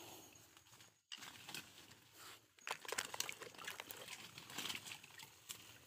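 Shallow water splashing and sloshing as hands grab into it for a shrimp, a quick run of small splashes and crackles starting about two and a half seconds in.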